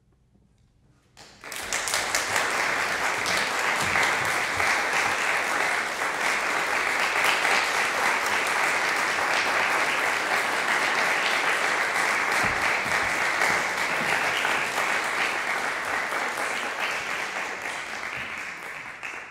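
Audience applauding, starting suddenly about a second in after a brief near silence, holding steady, then fading out near the end.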